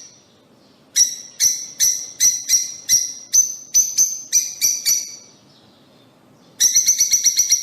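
Lovebirds calling: a run of sharp, high-pitched chirps, about three a second, then a pause of a second or so, then a fast rattling string of chirps near the end.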